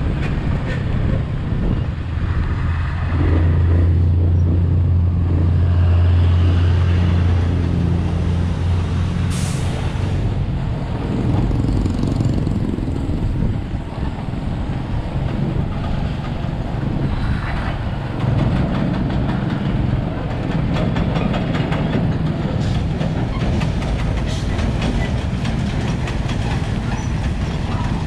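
Motorbike ride on a road: engine and road noise run throughout, with a strong deep steady drone between about 2 and 8 seconds in and a brief hiss about nine seconds in.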